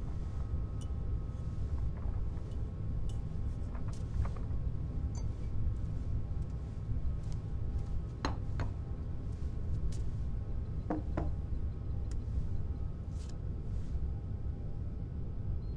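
Steady low rumbling drone of a space-station interior, with scattered light clicks and taps of small objects being handled.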